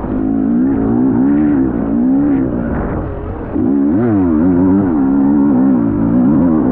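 Motocross bike engine running hard, its pitch rising and falling over and over with throttle and gear changes. The throttle eases off briefly about three seconds in, then the engine revs back up sharply.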